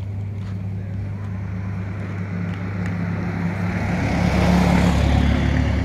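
A car passing on the street: its sound swells to its loudest about four to five seconds in and eases off near the end, over a steady low engine hum.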